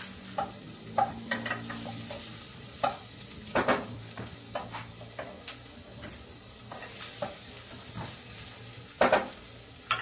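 Food sizzling in a frying pan while a cooking utensil stirs it, with scattered light clicks and scrapes against the pan. Two louder double knocks of the utensil on the pan come about three and a half seconds in and near the end.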